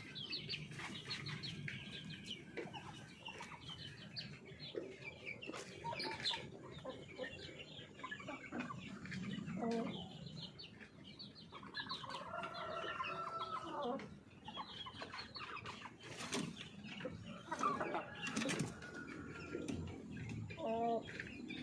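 Chickens clucking with many short calls, one drawn-out call about halfway through, and a few sharp knocks.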